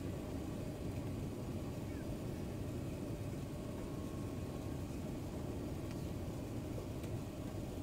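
Steady low rumble of an airliner's engines and rushing air, heard inside the passenger cabin on final approach, with a faint high hum over it.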